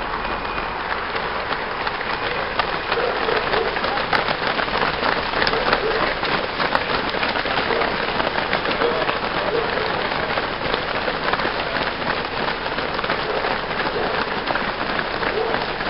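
Footsteps of a large pack of road runners on wet tarmac: a dense, steady patter of many shoes at once.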